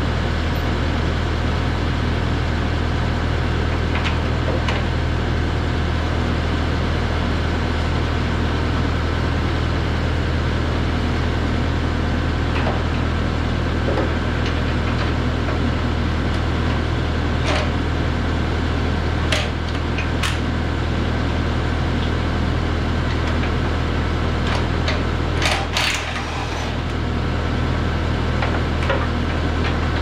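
A steady machine hum, like an engine or motor running, with scattered sharp knocks of metal as a steel brush guard frame is fitted to the back of a skid steer; a cluster of knocks comes near the end, where the hum briefly dips.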